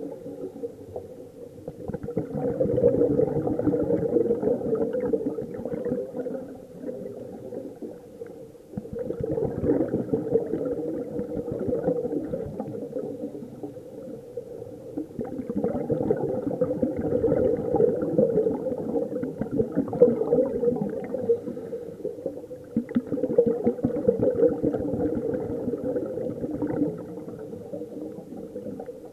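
Scuba regulator breathing heard underwater: exhaled air bubbling and gurgling out in bursts of a few seconds, about every seven seconds, with quieter inhalation gaps between.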